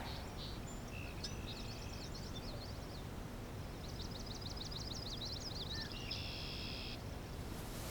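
Small birds singing, in fast runs of repeated high chirps, over a low steady outdoor rumble.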